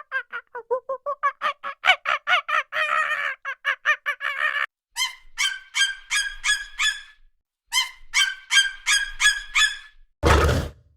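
Ducks quacking in rapid runs of about four to five quacks a second, in several bouts with short pauses. Near the end, a short, loud rushing burst.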